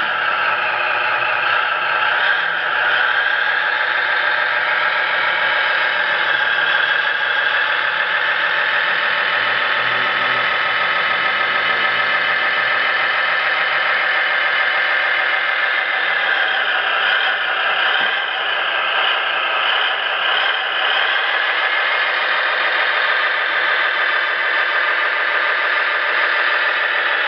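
SMX sound card in an RC scale Jeep playing a simulated engine sound through a small speaker. It runs steadily and is thin in the bass, with the pitch wavering a little past the middle.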